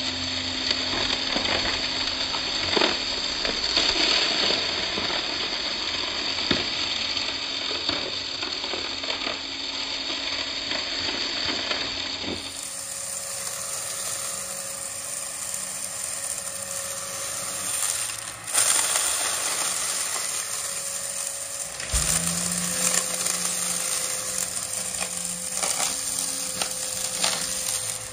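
Shark upright vacuum cleaner running over carpet covered in small debris, the bits crackling and rattling as they are sucked up over the steady motor hum. The sound changes abruptly a few times partway through.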